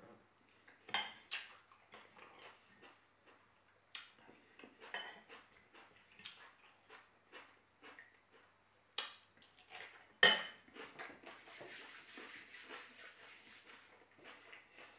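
A metal fork clinking and scraping against a ceramic salad bowl: a handful of sharp clinks, the loudest about ten seconds in, with chewing in between.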